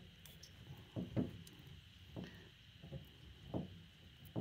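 Soft handling sounds of a greased brake caliper guide pin being worked into its rubber boot: about half a dozen short, dull low knocks and rubs, spaced irregularly.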